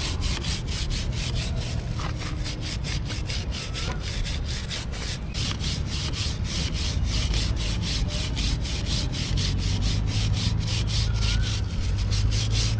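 A stiff chain brush scrubbing a motorcycle drive chain wet with C1 chain cleaner, in quick back-and-forth strokes of about four to five a second, over a steady low hum.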